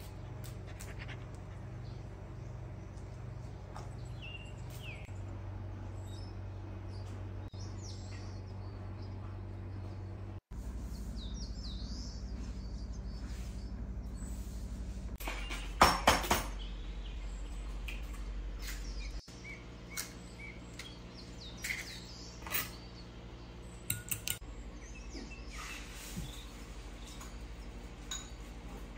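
Quiet room ambience with a steady low hum and birds chirping outside, their calls short and high. In the second half come sharp clicks and light clatters, the loudest a quick cluster about halfway through.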